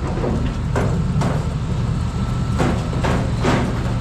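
Wheeled store cart rolling over a hard floor: a steady low rumble with several sharp rattles and knocks.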